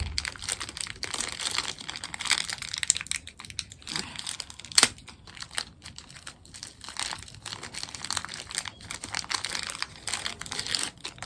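Plastic packaging crinkling and crackling as it is handled and opened, with many small clicks and one sharp click about five seconds in.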